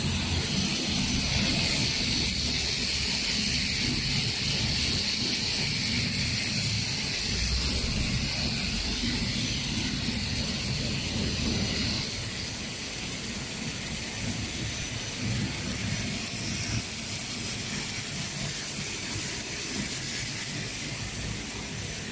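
HP-1800 automatic hot film microperforation machine running: a steady mechanical hum with a hiss over it. The hiss stops and the noise gets a little quieter about halfway through.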